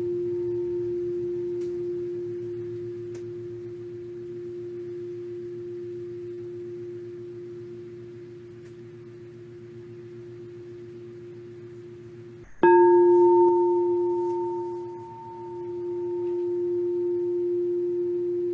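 Crystal singing bowl ringing with one steady tone that slowly fades, then struck again with a mallet about twelve and a half seconds in. The new ring comes in loud, with an added higher overtone, then dips and swells once as it sustains. Each ring is the cue to take a deep breath and release.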